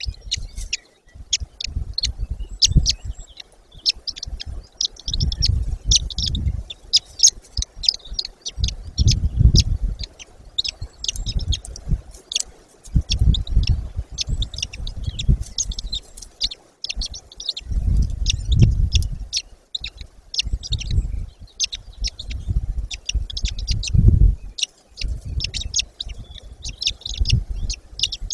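Rapid, high bird chirps and peeps throughout, over a low rumbling that swells and fades every second or two.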